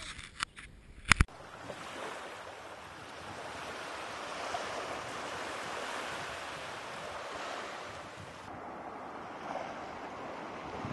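Two sharp knocks about a second in, then a steady rush of wind and sea noise. Its high hiss drops away about eight and a half seconds in.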